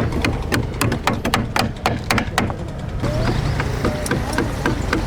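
A quick run of sharp knocks or clicks, about four a second, thinning out after about three seconds, over a steady low hum.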